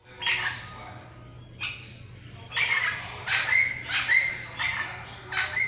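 Birds calling at waking time: a run of short, harsh squawking calls, a few spaced out at first and then coming in quick succession from about two and a half seconds in.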